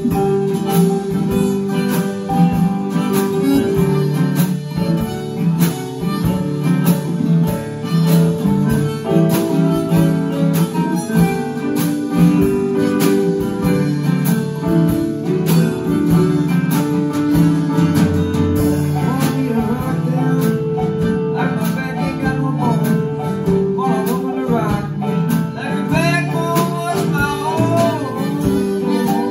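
A small band playing live: acoustic guitar strumming along with harmonica, drum kit and keyboard in a loose instrumental jam.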